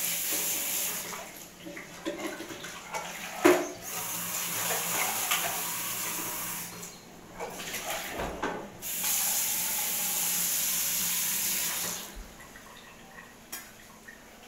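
Water running from a kitchen tap in two spells, briefly at the start and again for about three seconds after the middle, with scattered knocks and clinks between them, the sharpest a little after three seconds in.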